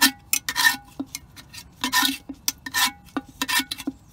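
A metal tool scraping and rasping against the inside of a vintage Aerograph air compressor's cast iron crankcase in quick, uneven strokes, about three a second, working loose thick sludge of water-laden gunk that oozes out of the drain hole.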